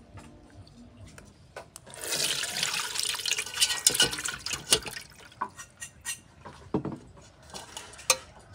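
Water pouring and splashing into a pot or bowl for about three seconds, starting about two seconds in, with scattered clicks and knocks of utensils and crockery. Water is being added to pounded field crab to wash out the meat for crab soup.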